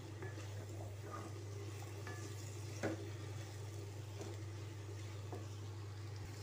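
Wooden spatula stirring spiced black chickpeas in a pan: soft scrapes and a few light knocks, the loudest just under three seconds in, over a low steady hum.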